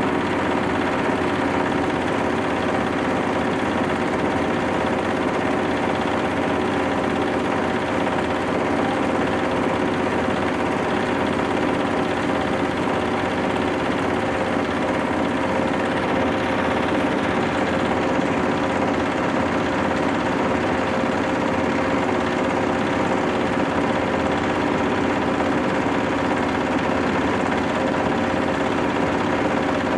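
Engine-driven rice-husk bran grinding mill running steadily under load, grinding husks into fine bran, an even mechanical drone with a steady hum.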